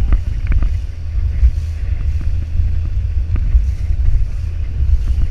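Heavy wind buffeting on the microphone with rushing, splashing water as an inflatable banana boat is towed at speed through a wake, with a few short slaps against the hull.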